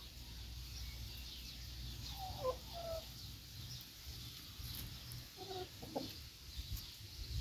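Brahma chickens clucking: a few short, quick notes about two seconds in and another small cluster near six seconds, over a low steady rumble.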